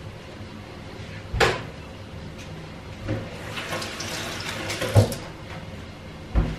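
Kitchen tap running into a stainless steel sink for about two seconds, with a sharp knock about a second and a half in and more knocks as the water stops and near the end.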